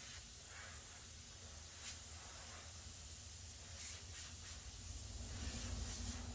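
Faint steady hiss of compressed air leaking from a scuba regulator's fitting on the tank, with a few light handling clicks and a low rumble building near the end.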